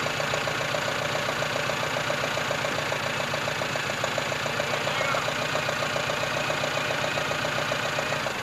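International farm tractor's engine running at a steady, unchanging speed with a quick, even pulse, under a hiss of old tape noise.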